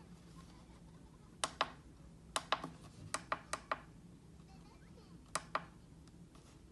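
Buttons on a Homtime digital alarm clock speaker being pressed: about nine sharp clicks, mostly in quick pairs.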